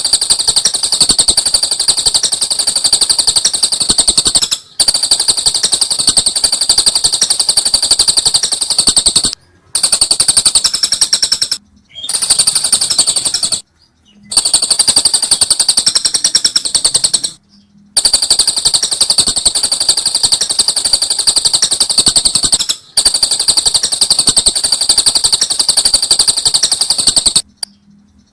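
Lovebird ngekek: a long, very rapid, high-pitched chattering trill. It comes in runs of two to five seconds, each broken by a brief gap of well under a second: the short-pause ("jeda rapet") style of ngekek.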